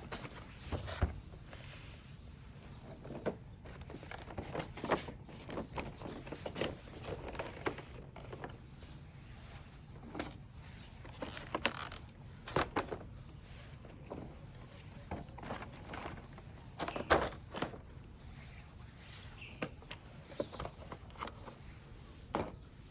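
Irregular clicks, taps and rustling of hands handling plastic toy parts and their packaging during unboxing, with a few sharper clicks around four, twelve and seventeen seconds in.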